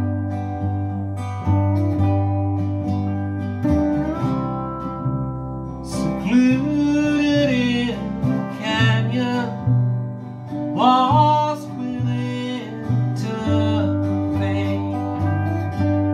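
Small acoustic string band playing country-style music. Picked guitar, 8-string baritone ukulele and bowed cello play over a steady bass, with sliding, gliding notes about six and eleven seconds in.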